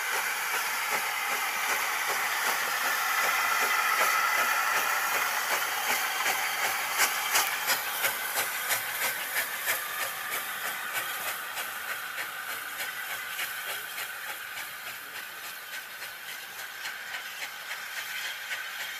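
Small steam tank locomotive pulling away, with a steady hiss of escaping steam and a run of quick, regular beats that fade as it moves off.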